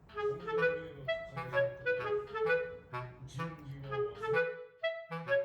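Background music: a light melody of short notes in a steady rhythm over a bass line.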